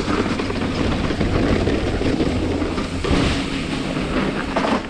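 Mountain bike rolling fast down a trail: a continuous rumble of the tyres with a constant clatter and rattle from the bike over the rough ground.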